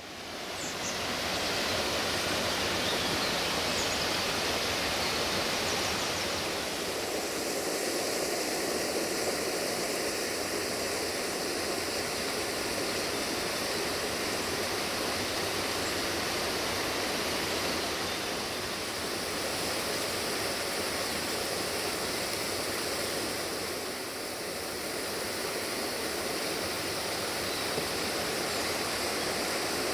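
Waterfall: a steady rush of falling water that sets in suddenly at the start and holds evenly throughout.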